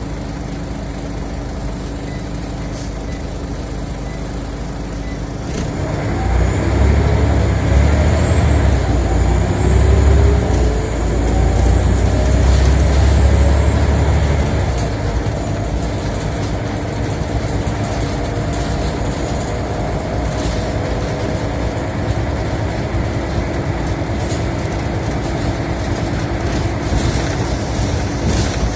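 Scania L94 Omnicity bus's diesel engine heard from inside the saloon. It idles steadily, then about five and a half seconds in pulls away with a loud low rumble and a rising whine. Around fourteen seconds in it eases back into a steadier running noise as the bus travels along.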